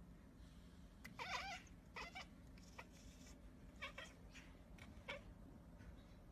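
Domestic cat making a string of short, faint chirping calls, the loudest a wavering trill just over a second in, followed by several briefer chirps.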